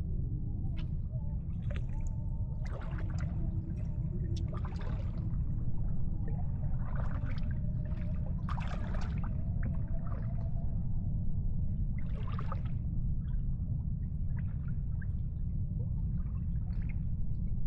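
Water splashing and lapping in irregular surges every second or two, over a steady low rumble.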